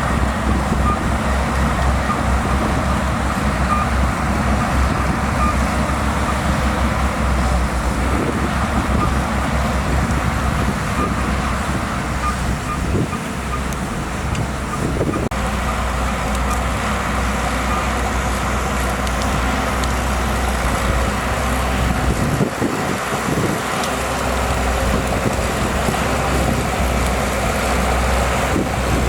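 Shantui DH17C2 bulldozer's diesel engine running steadily at working load. Through the first half its reversing alarm beeps about once a second.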